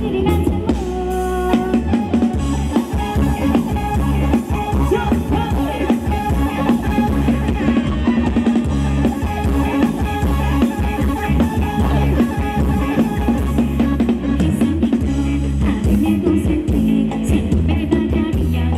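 Live band playing loud amplified dance music through a PA, with a steady drum-kit beat, bass and a singing voice.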